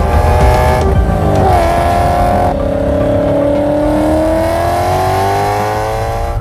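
A car engine running, its pitch dropping over about a second, then climbing slowly and steadily as it picks up revs.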